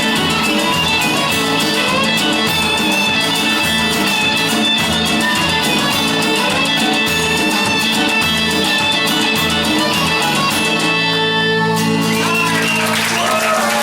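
A band plays guitar-driven rock music. About eleven seconds in it settles onto a held final chord, and near the end cheering begins.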